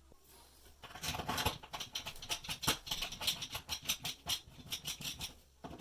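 Screwdriver turning the screw of a molly bolt anchored in drywall: a dense, irregular run of small scraping clicks that starts about a second in and stops shortly before the end.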